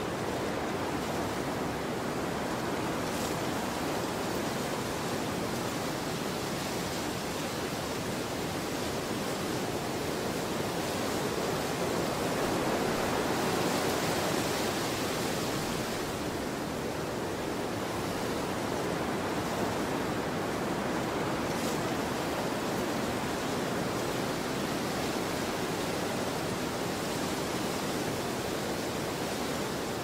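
Steady rushing wind ambience, swelling slightly about halfway through.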